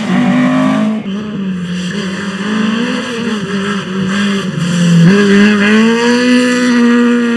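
Rally car engines revving hard at full throttle. The sound changes abruptly about a second in, and about five seconds in the engine note jumps up and climbs steadily.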